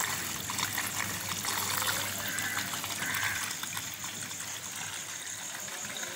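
Small submersible filter pump running in a tub of murky kitchen-sink wastewater, its outlet jetting water into the tub with a steady rushing and splashing over a low hum. The pump is circulating the grey water through the filter stage.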